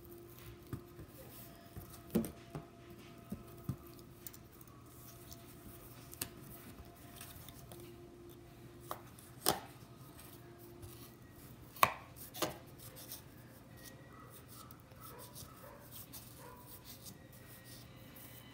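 Small scissors of a red pocket knife snipping through cardboard: a dozen or so crisp snips at irregular intervals, the loudest about twelve seconds in.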